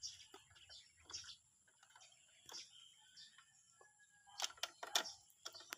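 Faint metallic clicking and ticking of a hand socket driver loosening the rear grab-rail bolts on a scooter. A cluster of louder clicks comes about four and a half seconds in.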